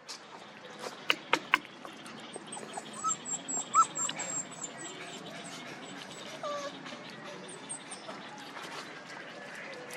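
Small Pomeranian puppies whimpering in short, high squeaks, with a few sharp clicks about a second in and a high, rapid twittering in the background.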